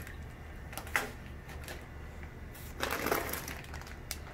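Plastic fish bag crinkling as it is handled, with a sharp tap about a second in and a longer, louder crinkle near three seconds, over a steady low hum.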